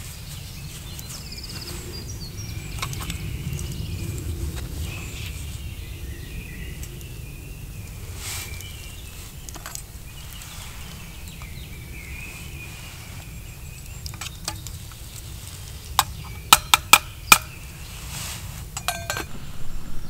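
Metal camp cookware clinking: four or five sharp, ringing clinks in quick succession about three-quarters of the way in, and one more shortly before the end. Faint bird calls and a low rumble sit underneath.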